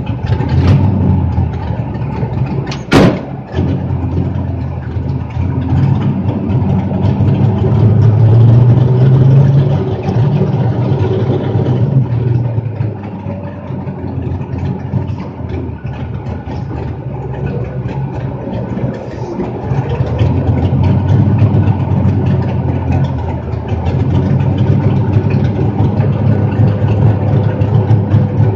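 Vehicle engine running, heard from inside the cockpit, its level swelling and easing as the revs change. A single sharp knock about three seconds in.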